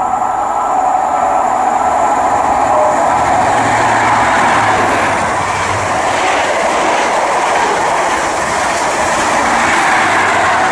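High Speed Train (InterCity 125 with Class 43 diesel power cars) passing non-stop at speed: a steady, loud rush of wheels on rail as the coaches go by, with the rear power car going past near the end.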